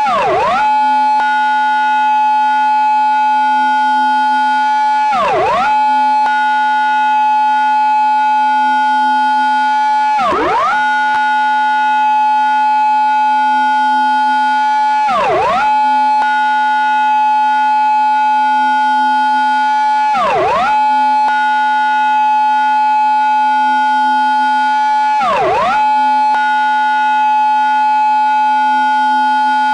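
Japanese police car siren in its intersection-entry pattern: a long, steady high tone that dips sharply and swoops straight back up about every five seconds.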